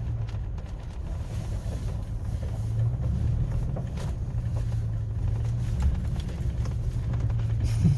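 Truck engine running at an even pace, heard from inside the cab while the truck is driven through a turn: a steady low hum with a haze of road noise over it.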